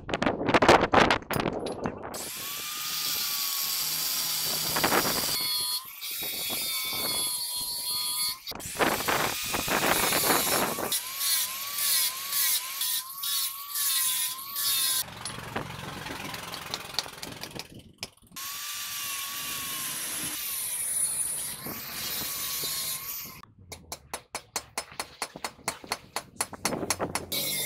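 Angle grinder running in several long passes, grinding and cleaning a round steel part, its motor whine dipping and recovering as it bites under load. In the last few seconds, a fast series of sharp metal knocks.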